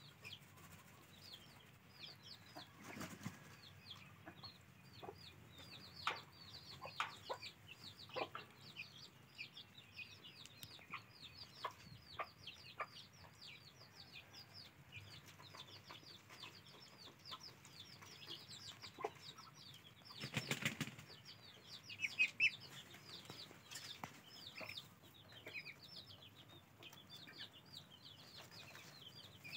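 Ducklings peeping, a constant chorus of high, short calls that slide downward, several a second, with the rustle and flap of feathers as they preen and shake themselves. There is a louder flurry of wing-flapping about twenty seconds in.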